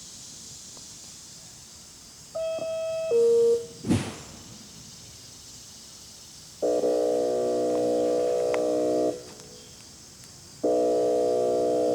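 Homemade electronic siren through a loudspeaker: a single high–low two-tone cycle, then a sharp thump, then two long air-horn blasts, each a chord of several steady tones held for about two and a half seconds. The second blast starts near the end.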